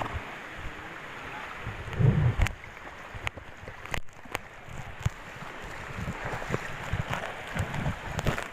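Steady rushing of river water, with a loud low thump about two seconds in and scattered short knocks and clicks.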